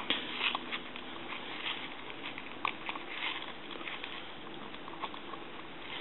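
Faint, irregular small clicks and scraping from the opened rotary dial of a Western Electric 202 telephone being worked by hand. Its tension spring is too slack, so the dial turns slowly.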